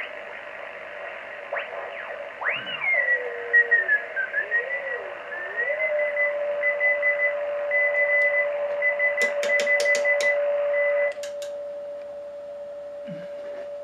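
Shortwave receiver audio from a Yaesu FT200 fed through an MFJ-781 DSP filter to a speaker: band hiss with whistling tones that glide up and down as the receiver is tuned. A steady carrier tone then settles in, alongside a higher Morse code signal keyed on and off. A few sharp clicks sound, and about eleven seconds in the hiss cuts away suddenly as the filter narrows down, leaving the steady tone.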